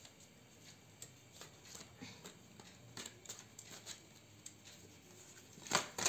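Faint rustling and light clicks of tarot cards being handled between draws, with a sharper click near the end.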